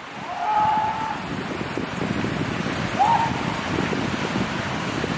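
Wind buffeting the microphone in a steady rumble, with two short distant calls, one held about half a second in and a brief one around three seconds in.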